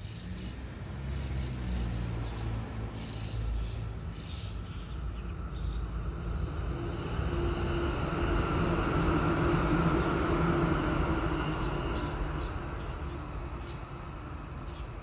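A passing vehicle: a low rumble with a steady hum in it that swells to its loudest about ten seconds in, then fades away.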